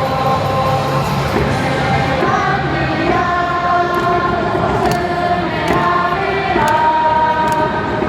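Baseball crowd in the stands singing a cheer song in unison over loud amplified stadium music, with sharp claps or thunderstick strikes cutting through in the second half.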